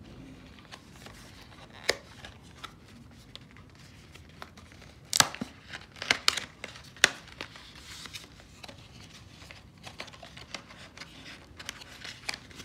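A small cardboard box being handled and opened by hand: paperboard rustling and scraping, with a few sharp clicks and snaps around the middle.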